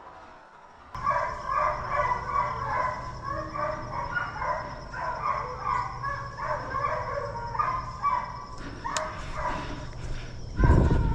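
Pack of deer hounds baying on a running trail, many overlapping drawn-out voices, starting about a second in. A loud low rumble near the end.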